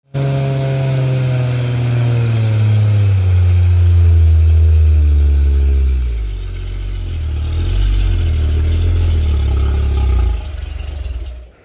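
Loaded diesel cargo truck's engine labouring up a steep hill, its revs sinking steadily over the first few seconds as it bogs down under the load, then running low and uneven. It is the sound of a truck losing power on the climb.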